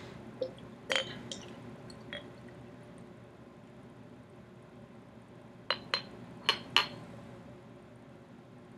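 Beer poured from a bottle into a glass: quiet pouring with light glass clinks, a few about a second in and four sharper ones about six seconds in.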